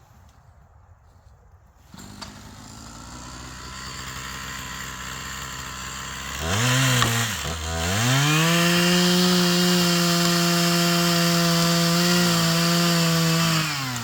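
Chainsaw engine coming in at a low idle about two seconds in, revved once briefly, then held at a steady high speed for about five seconds before throttling back near the end.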